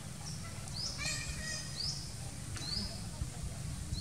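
A bird calling over and over, short chirps that sweep upward and then level off, about one a second. About a second in comes a longer call with many overtones. A steady low rumble of outdoor background noise runs underneath.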